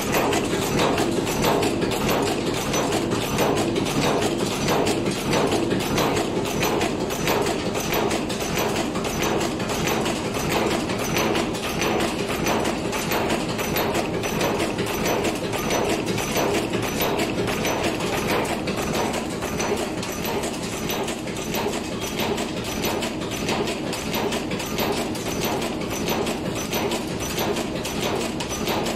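Multi-station cold forging machine running, its press and dies striking in a rapid, steady rhythmic clatter as it heads hammer-head T bolts.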